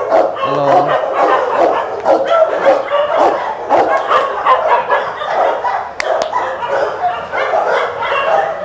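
Many dogs in a crowded shelter barking at once, a continuous din of overlapping barks with no pause.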